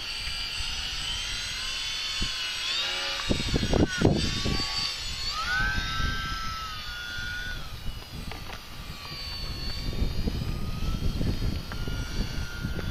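Electric motors and propellers of RC foam profile aerobatic planes whining in slow, hovering flight, the pitch rising and falling as the throttle is worked. A louder, lower whine swells about four seconds in.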